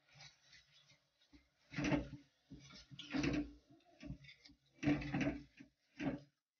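Wooden spatula stirring grated bottle gourd in ghee in a steel kadhai, several scraping strokes against the pan, the loudest about 2, 3 and 5 seconds in.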